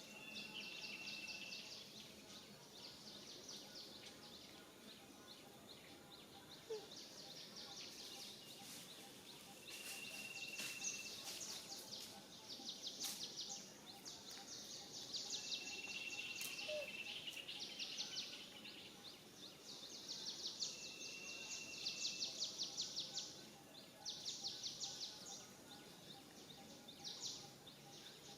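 Outdoor wildlife ambience: rapid, high-pitched trilling calls in repeated bursts of a second or two, with a short, steady high whistle recurring every five or six seconds.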